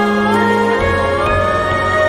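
Slow, sustained meditation music: long held synthesized tones over a changing low note, with some tones gliding slowly upward.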